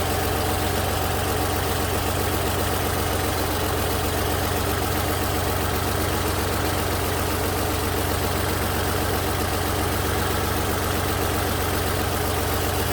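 2008 Toyota RAV4's 3.5-litre V6 idling steadily with the hood open, running rough with a misfire on cylinders two and four.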